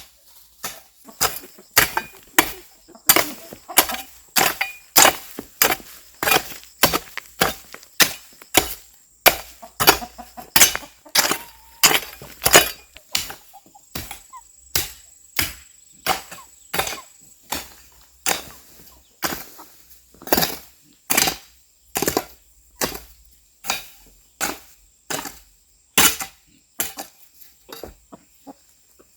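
A hand tool chopping steadily, about one and a half sharp strikes a second, keeping an even rhythm for nearly half a minute.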